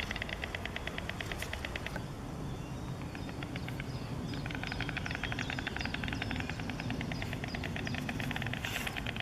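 White storks clattering their bills: a very fast, even rattle of many rapid strokes in long runs. The rattle weakens about two seconds in and comes back strongly about four and a half seconds in.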